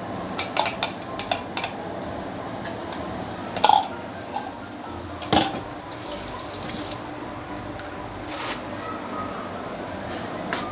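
Spatula clinking, knocking and scraping against a pan as ginger paste is stirred and sautéed in oil, with a flurry of light clicks in the first second or so and two louder knocks about a third and halfway in.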